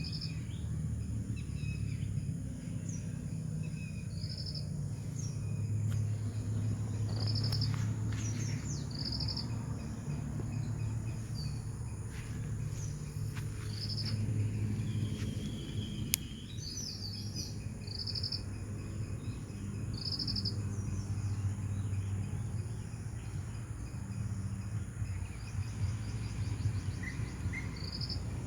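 Early-morning outdoor ambience: insects keep up a steady high trill, crickets give short pulsed chirps every second or two, and a few birds call. A steady low rumble runs underneath.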